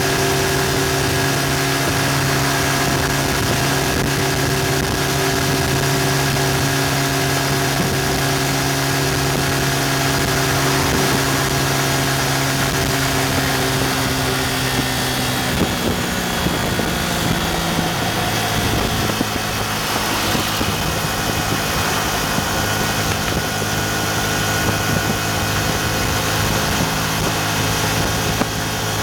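Yamaha FZ150i motorcycle's single-cylinder engine running steadily at high revs at highway speed, under a rush of wind noise. About halfway through the revs drop and the engine settles to a steady lower note as the bike eases off and slows.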